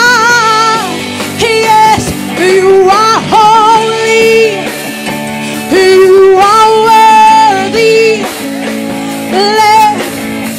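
A woman singing a string of long, held notes with vibrato, with short breaks between phrases, over a live worship band whose electric guitar and keyboard hold steady chords.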